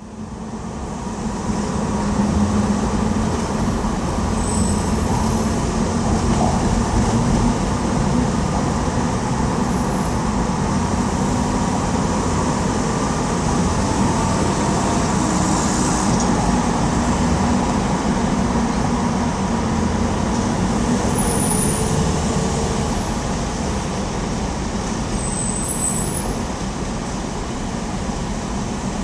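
Steady traffic on New York's Queensboro (59th Street) Bridge: a continuous rumble of passing vehicles with a low steady hum, fading in over the first couple of seconds.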